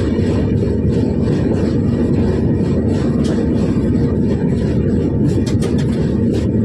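Train running on the rails: a steady low rumble, with a few faint clicks and ticks near the end.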